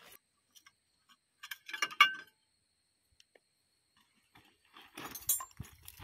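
Metal pieces clinking and rattling as they are handled, in two short bursts: one about a second and a half in, the other near the end.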